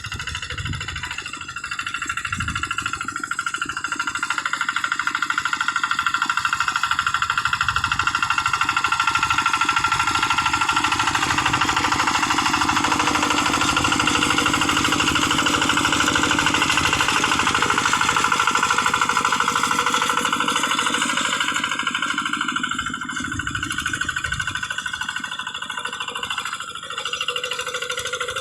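Kubota RD85DI single-cylinder diesel engine of a hand tractor running with a rapid, even knock. It gets louder a few seconds in and eases off a little near the end.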